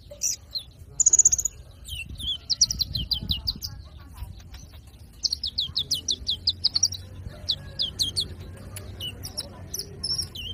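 A juvenile sunbird (konin, 'kolibri ninja') still in its green plumage, singing: sharp high chips and two fast runs of rapid, high-pitched notes, one just before the middle and a longer one just after.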